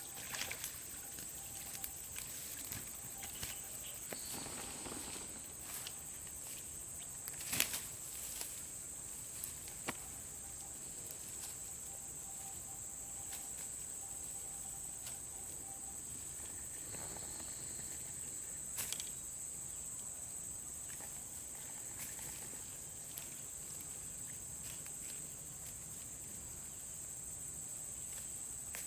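A steady, high-pitched chorus of insects, with a few sharp clicks and small knocks now and then.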